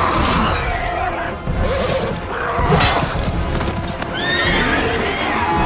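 Film battle soundtrack: cavalry horses galloping and whinnying over a music score, with several whinnies about four seconds in.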